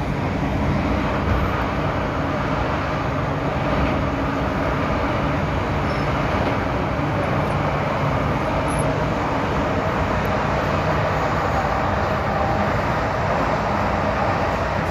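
MTR M-Train electric multiple unit running steadily at speed: a constant rumble of wheels on rail with a low, steady hum from its running gear.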